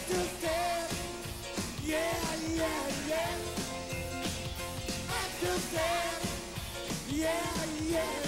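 Live pop-rock band playing, with voices singing over keyboards, bass and a steady drum beat.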